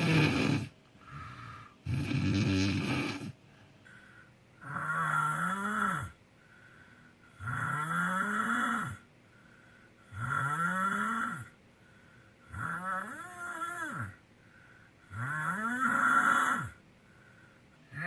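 A sleeping person snoring, one long snore about every two and a half seconds. The first few snores are rough and noisy. From about five seconds in, each becomes a pitched tone that rises through the snore and then drops off sharply at its end.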